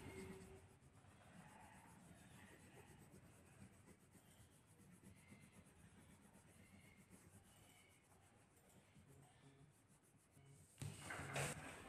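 A coloured pencil scratching as it shades across paper, faint at first and louder near the end.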